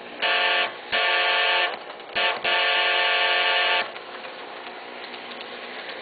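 Model diesel locomotive horn from an N-scale Kato diesel's sound system, played through a small speaker: four blasts of a steady chord, the third very short and the last the longest. A faint diesel engine running sound continues underneath.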